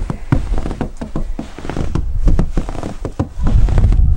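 Footsteps crunching in fresh snow: a string of short, irregular crunches and clicks, over a low rumble on the microphone that grows louder near the end.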